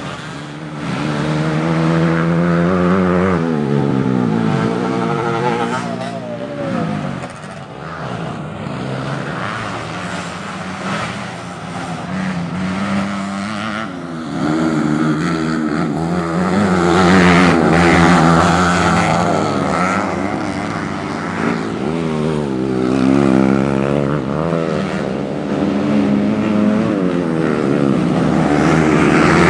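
Several modified underbone race motorcycles running on a grasstrack, their engines revving up and falling back again and again as the riders work the throttle and gears, several engine notes overlapping. It gets louder about a second in and again around halfway through.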